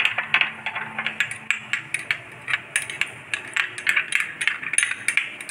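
Spoon stirring a thick tomato sauce in a small glass bowl, knocking and scraping against the glass in a quick, uneven run of clicks.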